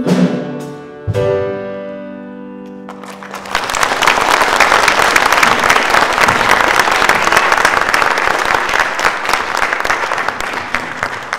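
The last chord of the song's accompaniment is struck about a second in and rings out for a couple of seconds. An audience then applauds steadily, and the applause tails off near the end.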